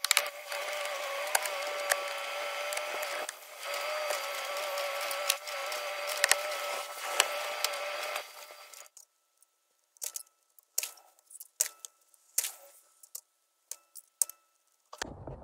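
A handheld power tool's motor, likely a drill, whining steadily with a slightly wavering pitch and a few sharp clicks for about eight seconds as the soffit vent is taken down. After it stops, scattered knocks and clatters follow as the soffit panels are pried off.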